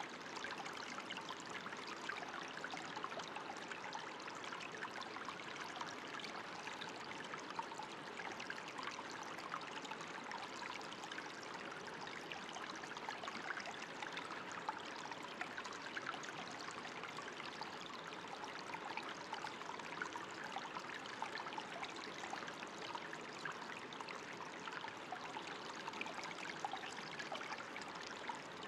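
Water running steadily, like a small stream, with fine trickling and splashing throughout.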